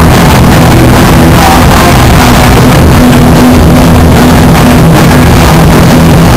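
Hardcore punk band playing live, loud and dense with sustained low distorted chords, the recording overloaded and clipping near full scale.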